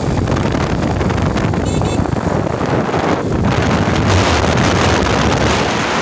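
Loud, steady wind buffeting the microphone, a dense rumbling hiss with no break.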